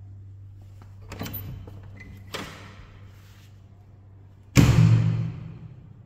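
Aluminium sliding door moving on its track, with a sudden loud thud about four and a half seconds in that dies away over about a second.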